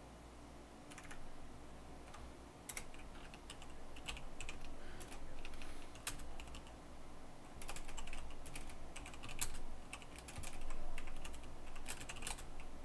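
Typing on a computer keyboard: irregular keystrokes in short runs with pauses between them.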